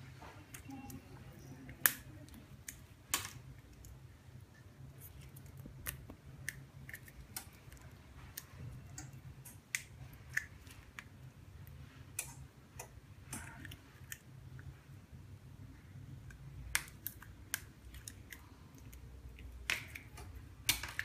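Scissors and a knife snipping and cracking the plastic base frame off an iPhone 6 Plus screen assembly: scattered short sharp clicks and snaps, the loudest about 2, 3, 17 and 20 seconds in. A faint steady low hum runs under them.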